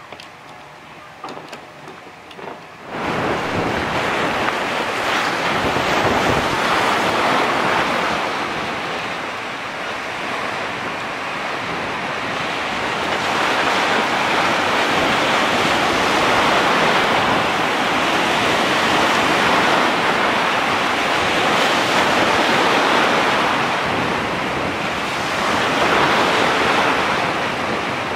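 Rough waves breaking and washing up a sand beach, with wind buffeting the microphone; the loud rush of surf swells and eases. It starts abruptly about three seconds in, after a few faint clicks.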